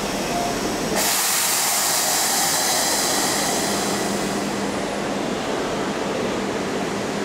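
Keisei 3700-series electric train at a station, with a steady hum. About a second in, a sudden loud hiss of released air starts and begins to fade a few seconds later.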